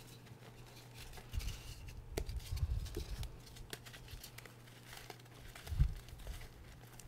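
Hands crushing and crumbling pieces of gym chalk in a tub of chalk powder: a run of fine crunches and crackles, with dull thumps as the fingers press into the powder, the heaviest about six seconds in.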